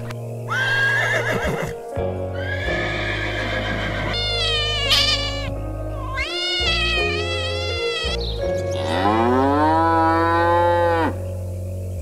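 A run of animal calls over steady background music: horse whinnies with a wavering pitch in the first half, then a cat meowing several times, then one longer call that rises and then holds before cutting off near the end.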